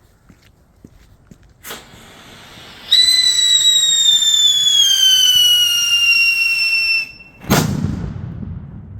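A firework goes off with a sharp crack and a hiss. Then comes a loud whistle that falls slowly in pitch for about four seconds and cuts off, followed by a loud bang with a long rumbling echo.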